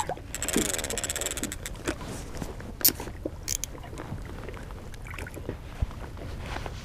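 Fishing reel being wound in, a rapid ticking for about the first second and a half, followed by a few sharp clicks, over a steady low wash of water against the boat.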